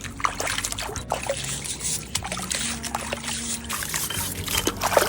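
Water trickling, with short knocks and scrapes of something being handled in it.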